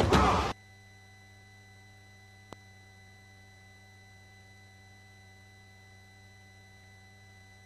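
Drum-heavy music cuts off about half a second in, leaving a faint steady electronic hum of several pure tones, with a single click about two and a half seconds in.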